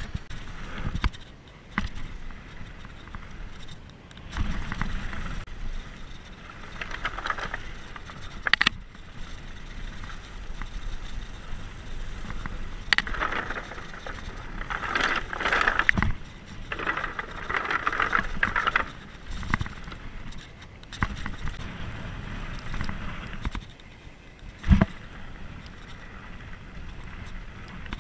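Mountain bike descending a rough dirt trail, heard from a camera mounted on the bike or rider: steady tyre and trail noise with the bike rattling and sharp knocks as it hits bumps. Around the middle there is a stretch of denser, brighter rattling as the tyres run over a slatted wooden bridge.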